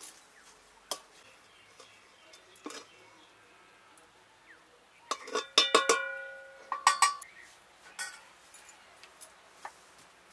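Metal spoon clinking and knocking against a metal pot while stirring damp rice flour, each strike leaving a short metallic ring. Scattered single clinks, with two quick flurries of knocks about five to seven seconds in.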